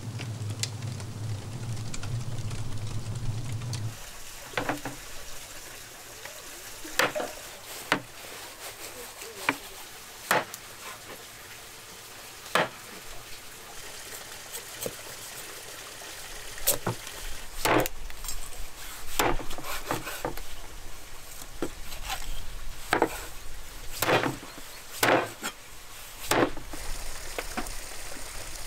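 Cooking sounds: a steady hiss with irregular sharp knocks and clicks of utensils against cookware or wood, about one every second or two. A steady low hum comes first and stops about four seconds in.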